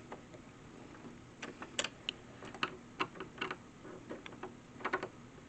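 Irregular light clicks and taps of small metal door hardware being handled and fitted, about a dozen in a few seconds, a couple of them sharper than the rest.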